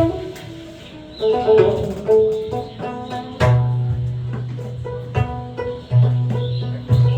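Live instrumental music without singing: pitched notes over short percussive hits, with a steady low bass note starting about three and a half seconds in and returning in pulses near the end.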